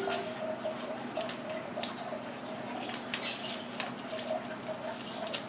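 Paper rustling and crinkling with scattered light clicks and taps as a gift is unwrapped, over a faint steady hum.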